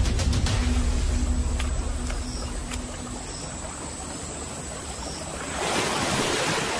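A low rumble with a steady hum fades over the first few seconds; then, about five and a half seconds in, river water rises to a loud rush and splash as crocodiles move through it.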